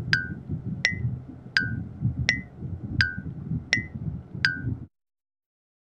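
Seven sharp ticks, about one every 0.7 seconds, each with a short ring that alternates between a lower and a higher pitch like a tick-tock, over a low rumbling hum. The whole sound cuts off suddenly near the end.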